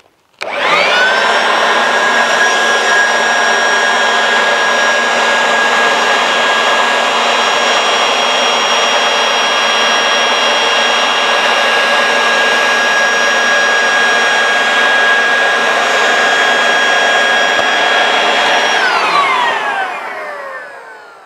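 Electric air blower switched on, its motor whining up to speed within a second and then running steadily with a high whine over rushing air. Near the end it is switched off and the whine falls in pitch as it spins down and fades.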